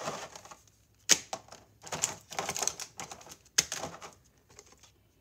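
Clear plastic packaging and a large card being handled: a few sharp plastic clicks and taps, the loudest about a second in and another about three and a half seconds in, with short rustles in between.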